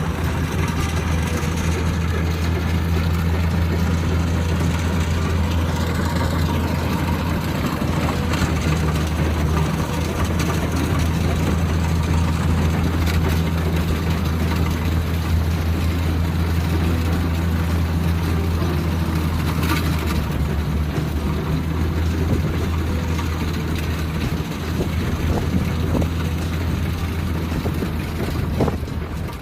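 Kubota DC60 combine harvester's diesel engine running steadily with a deep, even hum while working in the rice field.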